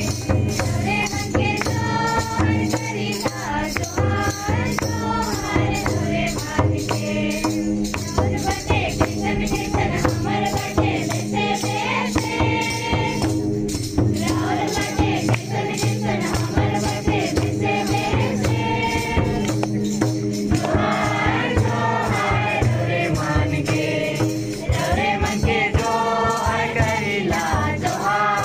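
A group of girls singing a welcome song together, accompanied by hand-held clappers and rattling percussion keeping a steady rhythm.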